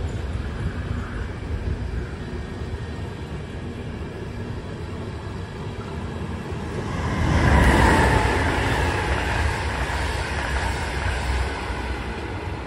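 Passenger train coaches rolling past on rails with a steady rumble. A little over halfway through, a second train passing on the other track swells the sound to its loudest with a rushing noise, which then slowly eases off.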